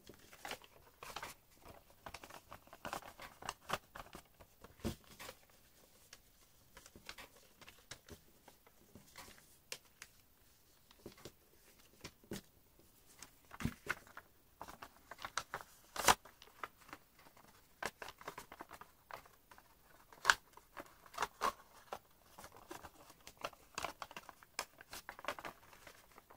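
A square sheet of origami paper being handled and folded by hand: irregular crisp rustles, crinkles and clicks as creases are pressed, with a sharper crack a little past halfway.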